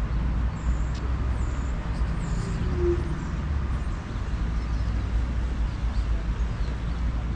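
Outdoor city ambience: a steady low rumble of road traffic, with a few faint high bird chirps in the first few seconds.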